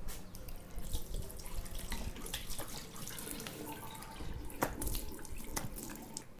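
Water running from a bathroom tap into a washbasin, with scattered splashes.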